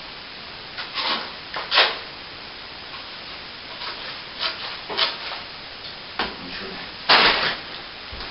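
Plastering tools scraping wet plaster in short, irregular strokes, the longest and loudest about seven seconds in.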